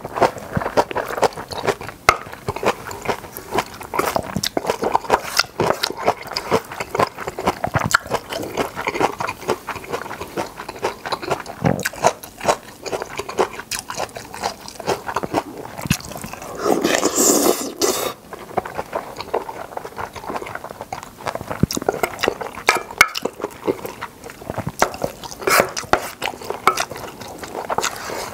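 Close-miked eating of jjamppong jjageuli, a spicy seafood noodle stew: continuous wet chewing and smacking mouth sounds, with a longer slurp-like noise about seventeen seconds in.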